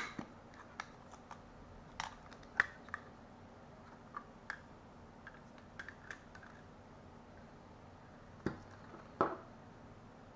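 Hard plastic clicks and taps as a small action camera and its clear waterproof housing are handled and fitted together: a dozen or so scattered sharp clicks, loudest at the start and twice near the end.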